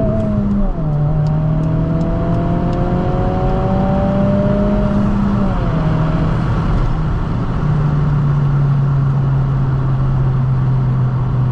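Honda Civic Si's turbocharged 1.5-litre L15 four-cylinder with a MAPerformance aftermarket exhaust, pulling hard under acceleration: the engine note climbs, drops at an upshift just under a second in, climbs again through the next gear and drops at a second upshift about five and a half seconds in. It then settles to a steady, slowly falling note as the car eases off.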